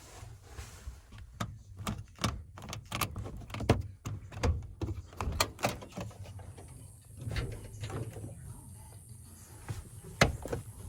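A series of irregular knocks and clunks, like things being handled or a door being worked, over a low rumble.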